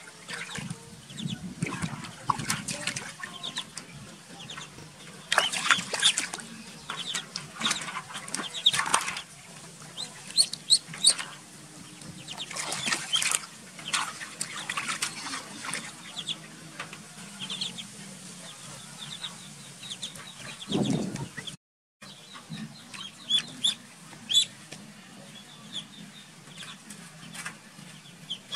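Ducklings peeping in short, high, repeated cheeps, with water splashing and sloshing in a metal basin.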